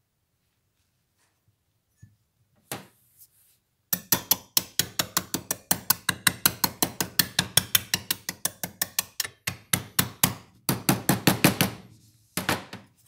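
A mallet rapidly tapping the bent brass top plate of a William Hunt spirit level, laid on a towel, to straighten it: sharp knocks about four a second in two runs with a short break, after a single knock.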